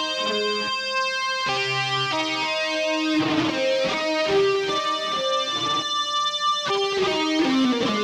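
Electric guitar played through a Line 6 M13 effects unit: a melodic line of single notes held and left ringing, with a few notes sliding down in pitch.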